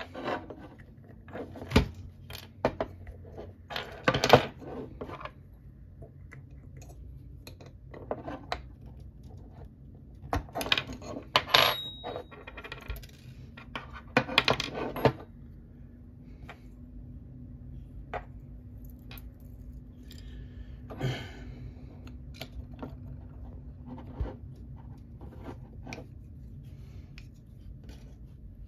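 Small metal parts of an airsoft MP5 gas-blowback bolt and nozzle assembly clicking and clinking in the hands as they are taken apart and refitted: clusters of sharp clicks with quieter stretches between, and one brief metallic ring near the middle.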